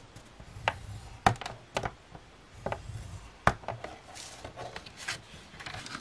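Cardstock being scored on a We Are Memory Keepers trim and scoreboard: the plastic scoring tool scrapes along the board's grooves, with about eight sharp clicks and taps as the tool is set into the grooves and the card is shifted on the board.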